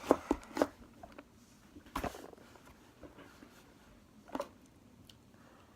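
Slime being pressed and pulled by hand, giving a few sharp sticky pops and clicks. A quick cluster of them comes at the start, then single ones about two seconds in and about four seconds in.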